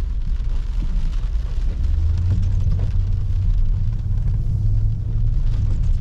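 Strong gusting wind buffeting the microphone, a heavy low rumble with a steadier hum underneath through the middle.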